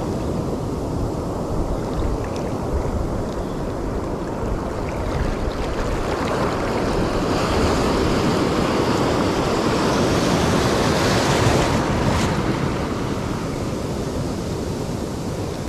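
Ocean surf washing around the legs and breaking, with wind noise on the microphone. The wash swells louder about halfway through, then eases off.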